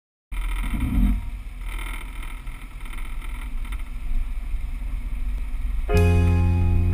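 Rushing wind on an action camera's microphone with road rumble from skateboard wheels rolling fast on asphalt. Music starts about six seconds in.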